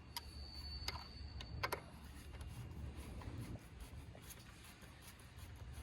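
A few small clicks and light rubbing in the first two seconds as the secondary battery cover is fitted and its Phillips head screws are driven with a screwdriver, over a low steady hum.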